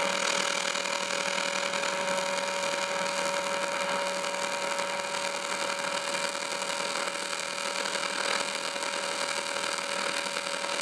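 AC TIG welding arc on thin aluminium plate: a steady buzz with a couple of constant tones over an even hiss while a weld bead is run.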